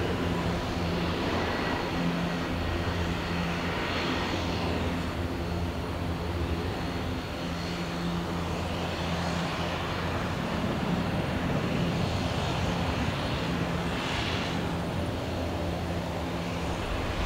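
Airliner engines running: a steady noise with a low hum underneath that swells a little twice.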